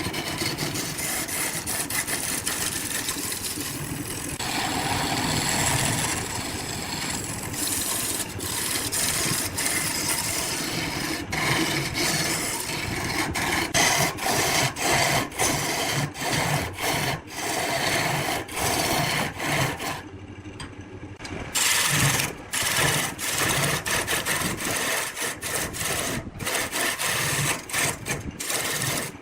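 Wood being cut and scraped by a woodworking tool. A steady rasping runs for the first half, then breaks into many short strokes with brief gaps.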